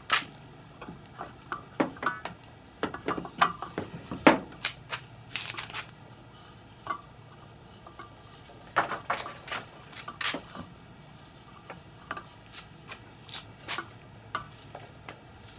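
Irregular clicks, knocks and rubbing as a garden hose is handled and wrapped onto a plastic hose reel drum. The loudest knocks come around four seconds in and again around nine to ten seconds in.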